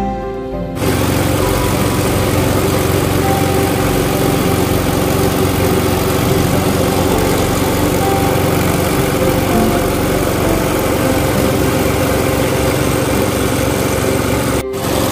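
The small motor of a wooden river longboat runs steadily with the boat under way. It comes in about a second in and holds an even, unchanging note.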